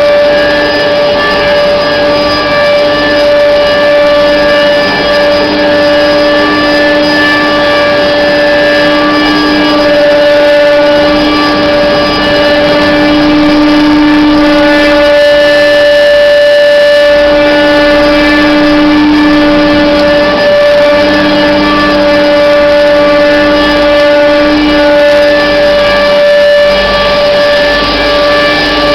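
Pipe-elbow making machine running: a loud, steady pitched hum that fades and returns every few seconds.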